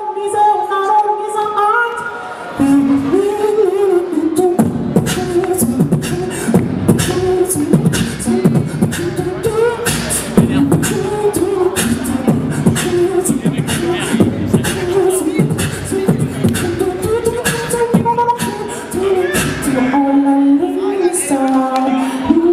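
Solo beatboxer vocalising into a handheld microphone. A pitched, hummed melody line sounds alone at first; about two and a half seconds in, beatboxed bass and sharp percussive clicks join under the melody, and the bass thins out near the end.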